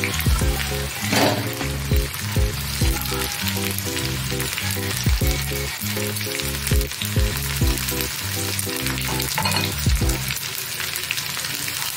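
Vegetables sizzling in hot oil in an iron kadhai on high heat, with the steady hiss of frying and scattered clicks and scrapes from a steel spatula and from shredded carrot and capsicum dropping into the pan. A low background music line plays under it and stops about ten seconds in.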